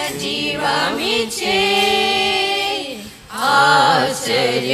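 A small group of women singing a Telugu Christian hymn together in long held notes, with a short break between phrases about three seconds in.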